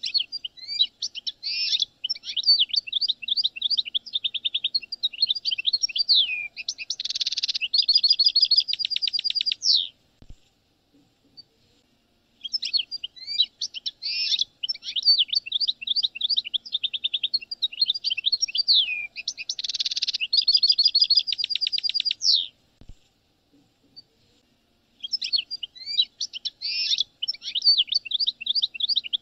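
European goldfinch song played back from a recording: long runs of rapid liquid twittering with buzzy trills, in three bouts of about ten seconds with short pauses between them, the same song sequence coming round again.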